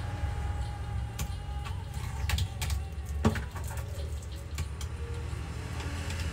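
Scattered light clicks and taps of small metal hand tools, tweezers and a screwdriver, against a laptop's case and a workbench, over a steady low hum.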